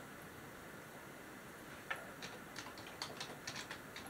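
Quiet, irregular tapping on a computer keyboard that starts about halfway through, a few keystrokes a second.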